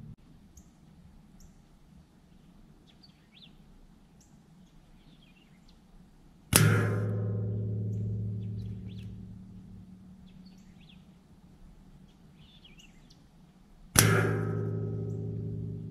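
Two .22 air-rifle pellet hits on hanging steel plate targets, about seven seconds apart. Each is a sharp clang that rings on for a couple of seconds and fades. Faint bird chirps come in between.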